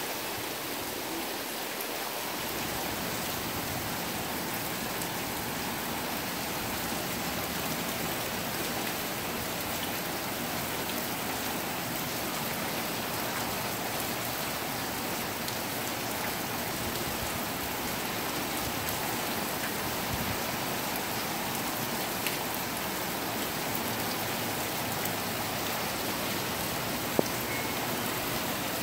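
Steady rain, with runoff dripping off the edge of the roof. Two sharp clicks stand out in the last third.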